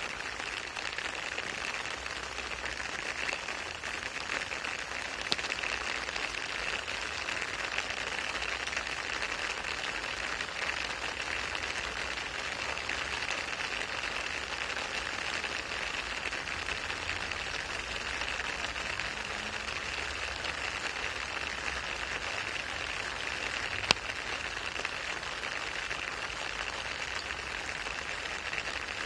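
Steady rain falling onto wet asphalt with a thin film of standing water, an even hiss of countless drops. A single sharp tick stands out late on.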